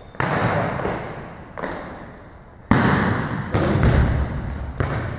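A series of heavy thuds, five or six of them, each ringing out in the echo of a large gymnasium, the loudest a little under three seconds in.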